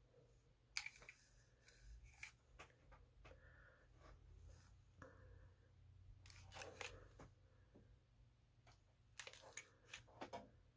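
Near silence, broken by faint clicks and rustles of a hair waver being clamped onto and slid through sections of hair, in small clusters about a second in, around six to seven seconds in, and near the end.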